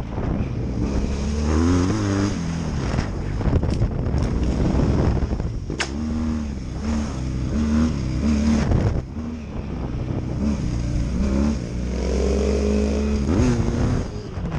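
BMW F800GS's parallel-twin engine being ridden hard off-road, its pitch climbing and dropping again and again with throttle changes and gear shifts. A couple of sharp knocks sound a few seconds in.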